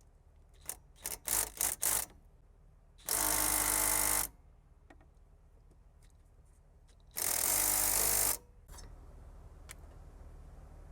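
Impact wrench working on a 14 mm brake caliper bolt: a few short trigger blips, then two runs of hammering about a second long each, a few seconds apart, as it tries to break the bolt loose.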